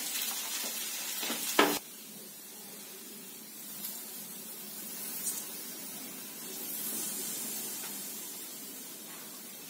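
Poha sizzling in a frying pan on a gas stove, loud for the first couple of seconds and then cutting off suddenly, leaving only a faint sizzle with a couple of light clicks.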